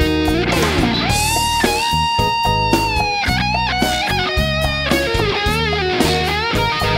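Instrumental break in a Latin pop song: an electric guitar plays a melodic lead with long held, wavering notes over bass and a steady drum beat.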